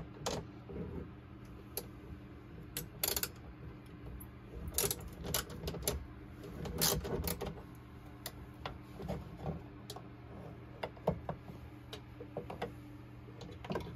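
Small metal clicks and rattles from a 7 mm socket on a long extension, turned by hand on screws inside an inverter's metal cabinet. The clicks come irregularly, in a few short flurries a couple of seconds apart.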